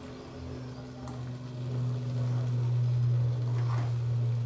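A steady low mechanical hum that swells about a second and a half in and eases off near the end, with a few faint scrapes of a metal spatula stirring okra in a steel pan.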